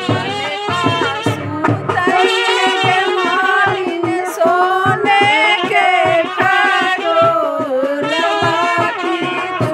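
Music of a Devi geet, a Hindu devotional folk song: a wavering melody line over drum beats that thin out about two seconds in.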